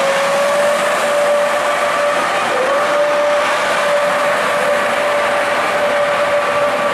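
Electric locomotive moving past at close range and gathering speed. Its traction motors give a steady high whine that rises a little in pitch at first, dips briefly a couple of seconds in, then holds, over the rumble and rush of the moving train.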